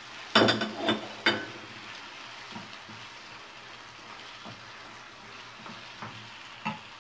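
Diced chicken breast, onion and sliced mushrooms sizzling in oil in a frying pan as they are stirred with a wooden spoon. A few sharp clatters come in the first second and a half, then steady sizzling with a few light knocks.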